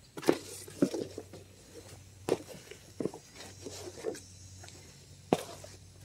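A shovel digging into a pile of mulch in a pickup truck bed and dumping it into a wheelbarrow: about half a dozen separate scrapes and knocks of the blade against the bed, with soft thuds of mulch landing in the barrow.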